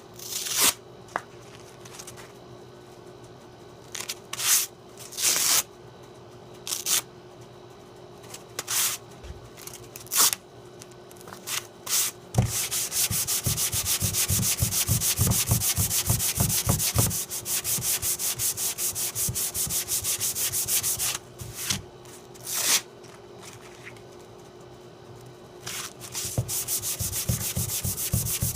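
Sandpaper on a soft foam Norton hand sanding block rubbing across wood by hand. It starts as single separate strokes, then turns to quick, continuous scrubbing strokes for about nine seconds, pauses briefly, and picks up again near the end.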